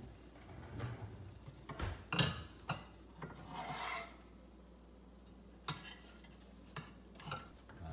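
Spatula scraping and knocking in a nonstick frying pan as a thin cooked egg is lifted and slid out onto a plate: a few sharp knocks, the loudest about two seconds in, and a short scrape just before four seconds.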